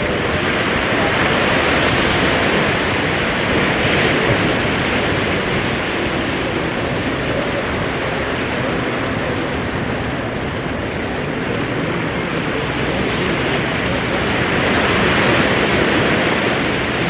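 Heavy ocean surf breaking and washing up the beach, its rush swelling and easing every few seconds.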